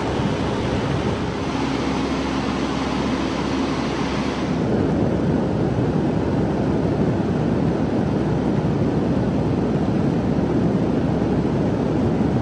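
Strong wind rushing and buffeting the microphone in a steady roar, with a brighter hiss for the first four seconds or so.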